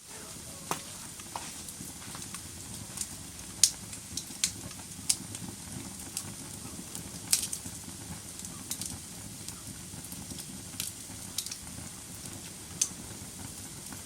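Wood fire burning in a fireplace: a steady low rumble and hiss of the flames with irregular sharp crackles and pops of the logs, the loudest a little under four seconds in and about seven seconds in.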